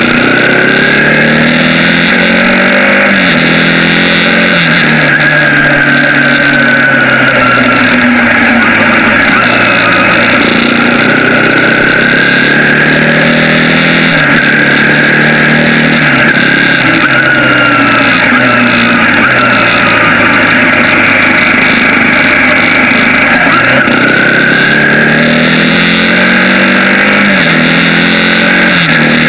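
Bajaj Pulsar 200NS single-cylinder motorcycle engine under way, its revs climbing and dropping again and again through the gears, over a steady rush of wind noise.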